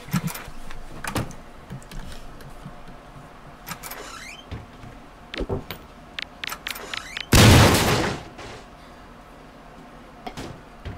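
Scattered light knocks and clicks, then one loud crash about seven and a half seconds in that dies away over about a second.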